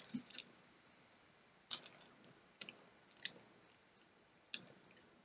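A crisp chocolate-covered wafer bar (Prince Polo) being bitten and chewed: faint, short crunches, a few together at the bite and then single ones every half second to a second.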